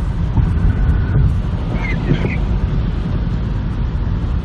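Wind buffeting the microphone: a loud, steady low rumble that eases off just after the end.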